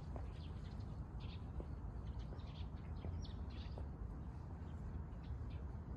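Small birds chirping, short high calls scattered throughout, over a low steady rumble.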